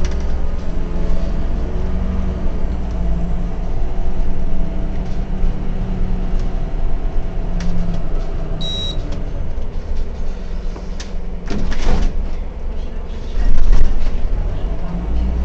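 Autosan M12LF CNG city bus running on the move, heard from the driver's cab: a steady low engine rumble with a gliding drivetrain whine, scattered rattles and knocks, and a short high beep about nine seconds in. The loudest moment is a jolt a little before the end.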